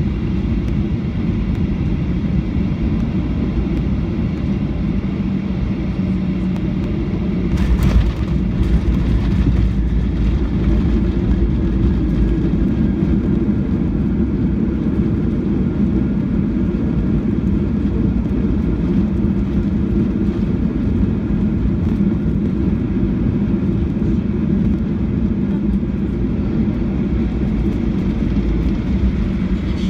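Cabin noise of a Boeing 737-800 landing: a steady low rumble of engines and airflow with a faint hum. A sudden knock comes about eight seconds in, followed by a heavier rumble as the airliner rolls down the runway.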